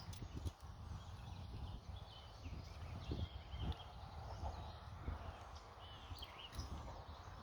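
Wind rumbling and buffeting on the microphone, with birds calling in short, repeated chirps throughout.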